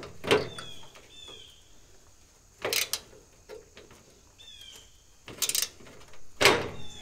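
Hand tools, a wrench and a screwdriver, clicking and clanking in a few short bursts as bolts are worked loose on an old tractor's sheet-metal body. Birds chirp short falling notes in between.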